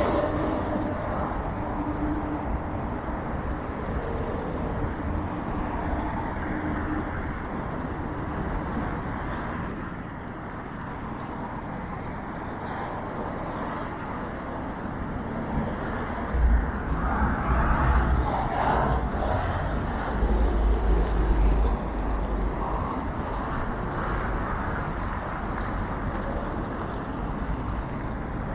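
Outdoor city street ambience: steady noise of car traffic on the road beside the embankment. There is a louder low rumble for several seconds a little past halfway.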